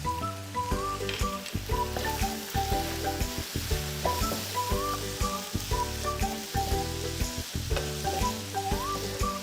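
Diced chicken breast sizzling in hot oil in a frying pan while it is stirred with spices, a steady hiss, under background music with a melody of short notes.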